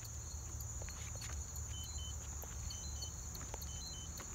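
Insects trilling in a steady, high-pitched chorus, with a few faint short peeps and light ticks and rustles of handling over a low rumble.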